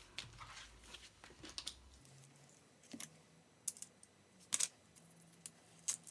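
Scattered light clicks and taps of a boxed K-pop album and its packaging being handled, a few at a time with quiet gaps, the strongest about four and a half seconds in.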